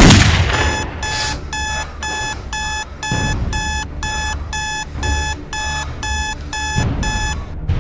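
A single loud gunshot, then a smartphone alarm clock beeping in short repeated groups about twice a second. The beeping stops just before the end.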